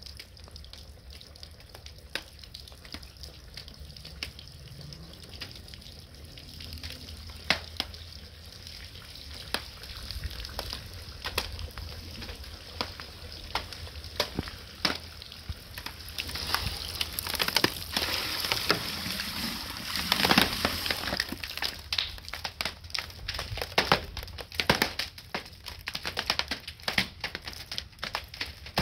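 Backyard rink ice cracking and popping under pressure as it is flooded in the cold: a steady run of sharp pops and snaps that thickens into dense crackling about halfway through and stays busy near the end.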